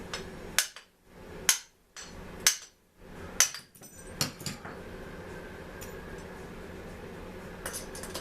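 Four sharp hammer blows, about one a second, followed by a few lighter clicks and taps.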